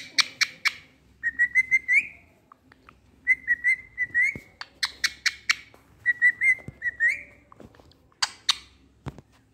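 Rose-ringed parakeet (Indian ringneck) giving runs of short, quick chirps at one steady pitch, several runs with pauses between, alternating with quick harsher notes.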